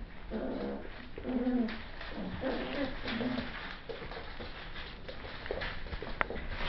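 Seven-week-old Bichon Bolognese puppies giving short, pitched whining calls as they play-fight, about five in the first four seconds and fainter after, with a sharp tick near the end.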